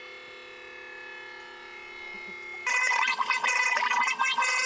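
A faint steady hum, then, about two and a half seconds in, an electric oil-change pump starts running loudly and unevenly.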